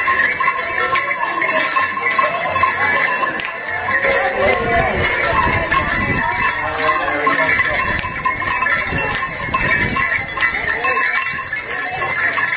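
A flock of white domestic ducks calling and quacking as they are herded along on foot, with a bell ringing over them.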